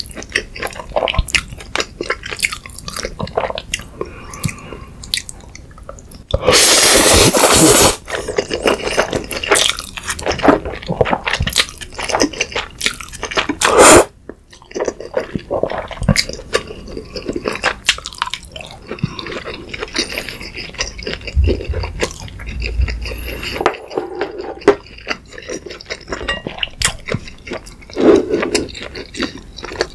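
Close-up eating sounds of a person slurping and chewing jjapaguri (black bean sauce instant noodles): a steady run of wet mouth clicks and smacks, with one long loud slurp about six seconds in.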